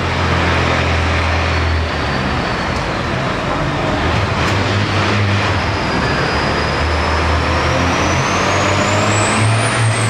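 International Harvester diesel tractor engine running hard under full load while pulling a sled. A high whine climbs steadily in pitch through the second half.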